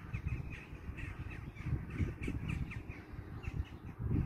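Birds calling in quick short calls, several a second, over a low rumbling noise.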